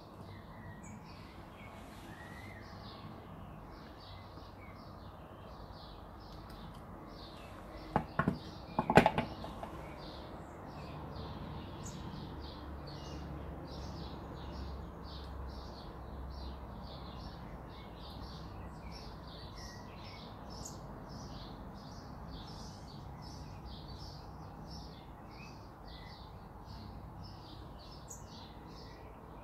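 Small birds chirping over and over in the background, short high chirps about two or three a second. About eight seconds in there are a few sharp knocks, the loudest sounds here.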